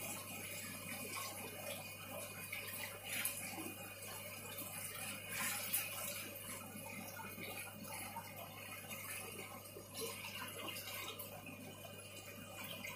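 Water poured in a steady stream into a plastic bucket sitting on aquarium sand, splashing inside the bucket and spilling over its rim into the glass tank.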